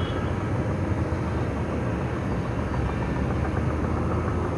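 A steady low rumble of background noise, even in level throughout, with no distinct events.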